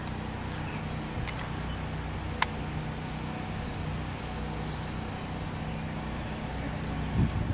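Steady low hum of portable generators running, with two faint clicks in the first few seconds.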